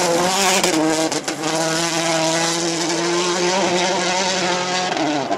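Citroën DS3 rally car's turbocharged 1.6-litre four-cylinder engine running hard at high revs as the car drives away on gravel, with tyre and gravel noise. The engine holds a steady pitch for most of the time, with a few sharp cracks in the first second or so and a brief dip near the end.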